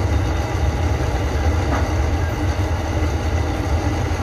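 Window-type air conditioner running, its compressor giving a steady low hum with vibration.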